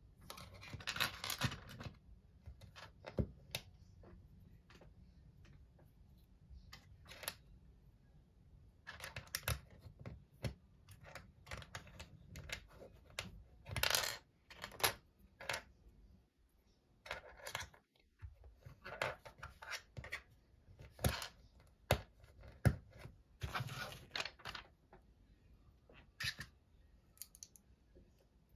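Plastic Lego bricks clicking and clattering as loose pieces are picked out of a pile and pressed together by hand, in scattered single clicks and short rattles.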